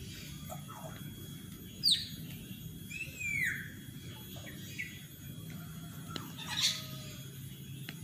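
Assorted bird calls: short, sharply falling chirps and squawks, the loudest about two seconds in, others near three and a half and six and a half seconds, over a steady low hum.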